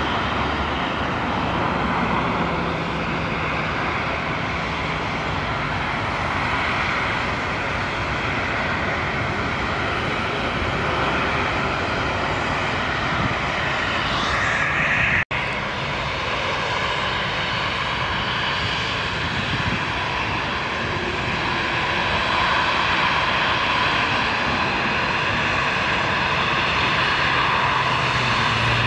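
Jet engines of a Boeing twin-jet airliner running steadily as it touches down and rolls out along the runway. The sound breaks off abruptly about halfway through, then steady jet engine noise carries on and grows a little louder, with an Embraer 195 regional jet taxiing close by near the end.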